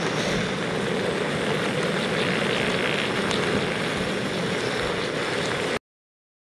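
Steady rushing noise of a camping gas stove burning under a pan of meat and bean sprouts simmering in its juices. It cuts off suddenly near the end.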